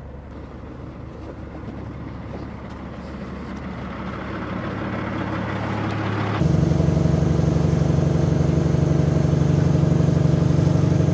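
Caterpillar C15 diesel engine of a 2006 Peterbilt 357 log truck running, growing steadily louder over the first six seconds. About six seconds in it jumps to a loud, steady drone heard from inside the cab as the loaded truck drives off the landing.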